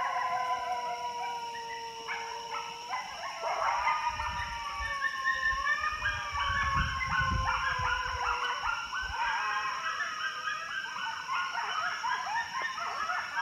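A group of canines howling with long, slowly falling and wavering notes, then breaking into many rapid, overlapping high yips from about four seconds in. A low rumble sits under it for a few seconds in the middle.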